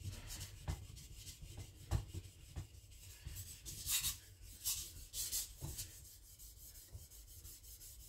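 Victorinox Chinese cleaver's steel blade rubbed back and forth almost flat on a sharpening plate with almost no pressure, thinning the blade behind the edge. Faint, irregular scraping strokes, a few sharper and hissier ones in the middle.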